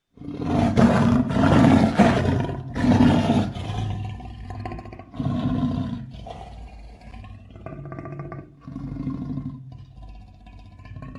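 Monster roar sound effect, layered from big-animal roars such as lion, grizzly bear and King Kong roars. It starts suddenly with three loud roars in the first four seconds, then fainter roars and growls trail off.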